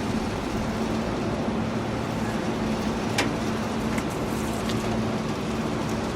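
HVAC unit running, a steady hum, with a sharp click about three seconds in and a fainter one a second later.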